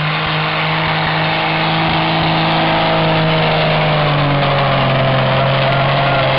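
Pulling tractor's engine running hard under load as it drags the weight sled down the track, getting a little louder as it comes past. Its steady note sags slightly in pitch about four to five seconds in, then holds.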